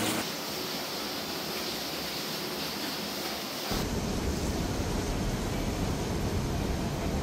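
Steady hiss of heavy rain falling. A little past halfway it cuts abruptly to a low rushing rumble of outdoor street noise, wind on the microphone and traffic on wet roads.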